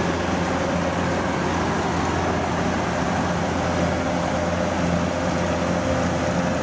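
Kubota DC105 rice combine harvester running steadily, a continuous engine drone.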